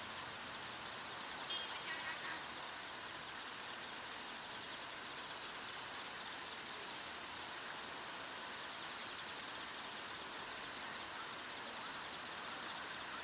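Steady outdoor background hiss with a few short high-pitched bird chirps about a second and a half in.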